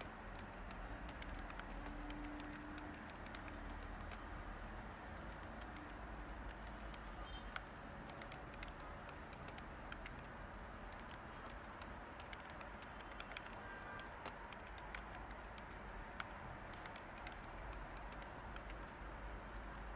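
Light typing on a computer keyboard: soft, irregular keystroke clicks over a steady background hiss of white noise.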